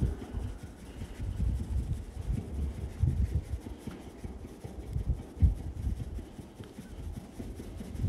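A hand patting and drumming on the wire fan grille and casing of an outdoor air-conditioning condenser unit, giving irregular low, dull thuds.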